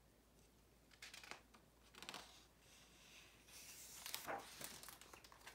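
Faint rustling as the pages of a picture book are handled and turned, in a few short soft bursts.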